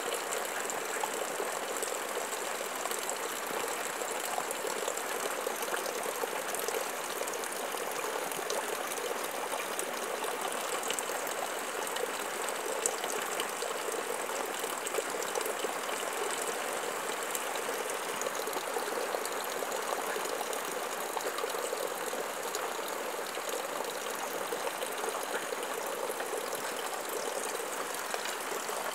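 Water churning and bubbling steadily at the surface around a submerged pipe in a fish tank, a continuous splashing hiss without pauses.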